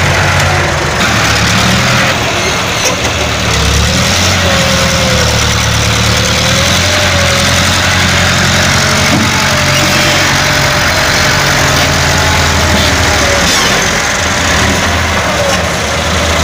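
Diesel farm tractor engine running steadily as the tractor drags a rear blade through loose soil, with a faint whine above it that wavers in pitch.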